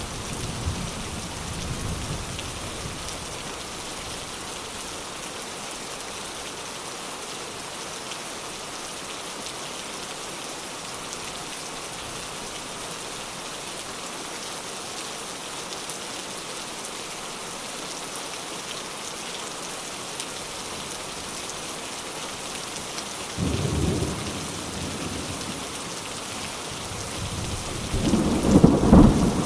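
Steady rain falling, with thunder: a rumble dying away at the start, a short roll of thunder about three quarters of the way through, and a loud low rumble building near the end.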